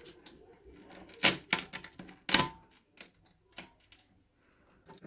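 Irregular sharp clicks and knocks of objects being handled, with two loud knocks about a second and two seconds in.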